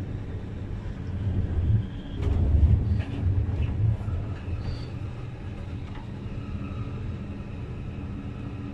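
Passenger train running along the rails, heard from inside the carriage: a steady low rumble that swells for a second or two about two seconds in, with faint light ticks above it.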